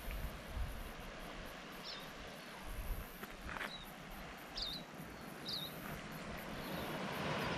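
Outdoor coastal ambience: a steady hiss of wind with a low buffeting rumble on the microphone, and a handful of short, high bird chirps through the middle.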